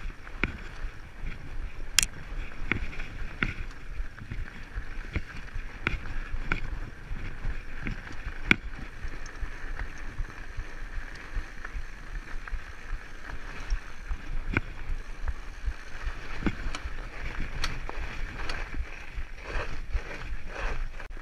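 Fatbike riding over packed snow: the wide tyres give a steady crunching hiss with a low rumble, broken by frequent sharp clicks and knocks as the bike jolts over the uneven trail, two of them louder, about two seconds in and past the eight-second mark.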